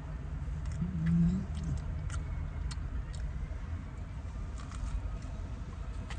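Steady low rumble of a car idling, heard inside the cabin, with a short low hum that rises and falls about a second in and a few faint scattered clicks.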